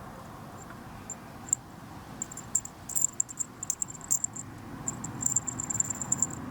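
Rapid, irregular small high-pitched clicks and ticks, as of small hard parts tapping together, starting about a second and a half in and coming in quick runs, over a steady low hum.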